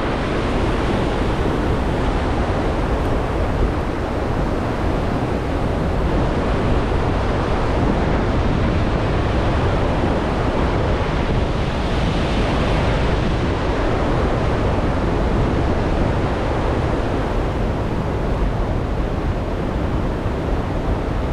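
Steady rushing of river water pouring over a weir, mixed with wind buffeting the microphone as a low rumble.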